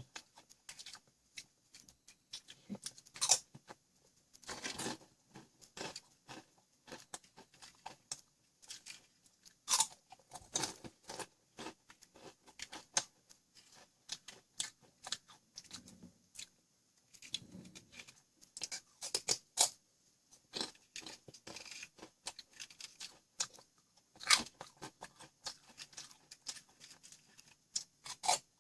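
Close-up crunching and chewing of Ogamja, a crisp baked potato snack, in irregular sharp crunches. A few of the bites are much louder than the rest.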